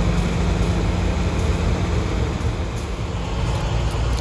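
Steady low engine rumble with a constant hum.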